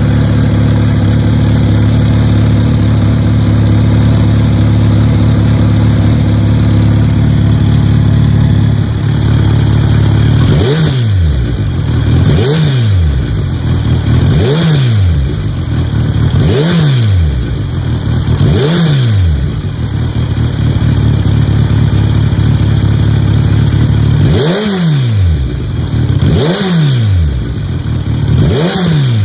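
Kawasaki Z900RS Cafe's inline-four engine running through an aftermarket Over Racing GP-Performance exhaust: a steady idle for about the first ten seconds, then eight short throttle blips, each revving up and falling back to idle, about every two seconds with a longer pause in the middle.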